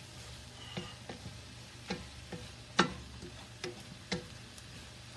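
Utensil knocking and scraping against a wok while mushrooms are stirred in hot oil: about seven irregular clicks, the sharpest near the middle, over a faint sizzle and a low steady hum.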